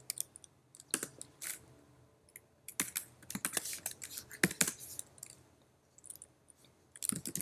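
Typing on a computer keyboard: irregular runs of keystrokes separated by short pauses.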